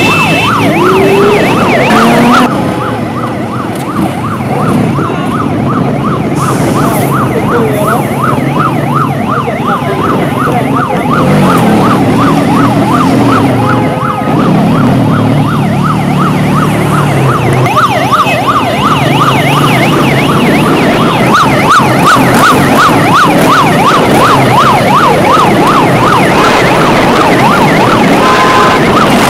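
Police escort siren sounding a fast yelp, rising and falling about three times a second, over the engines of a motorcade of cars and motorcycles.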